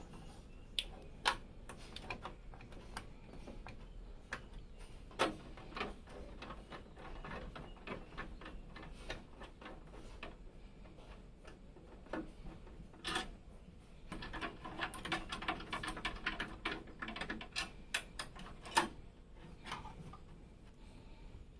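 Irregular clicks, taps and light rattles of small metal and plastic computer parts being handled, with a denser run of rapid clicking midway.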